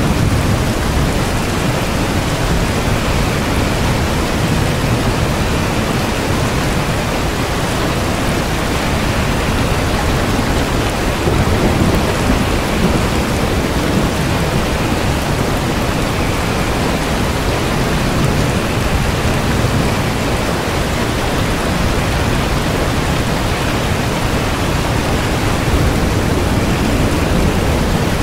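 Steady rain with a constant deep rumble beneath it, typical of a thunderstorm ambience.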